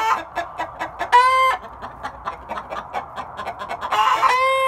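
A flock of chickens clucking in quick short notes while they feed, with two louder drawn-out calls, one about a second in and one near the end.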